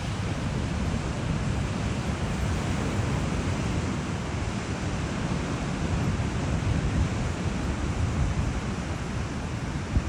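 Wind buffeting the microphone over the steady rush of ocean surf.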